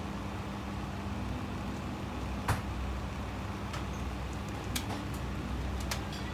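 A steady low machine hum with a few short, light clicks and knocks of painting tools being handled on a wooden box. The loudest click comes about two and a half seconds in.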